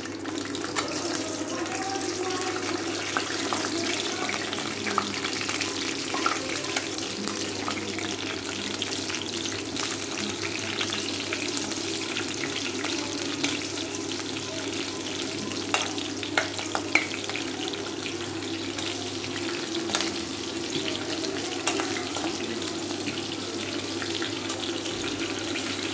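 Whole green chillies frying in hot oil in a kadhai: a steady sizzle with scattered pops and crackles.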